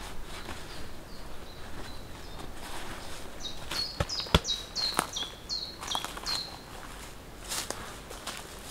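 Footsteps and rustling in forest litter, with a few sharp clicks or snaps about four to five seconds in. A songbird sings a run of about eight short notes, each stepping down in pitch, in the middle.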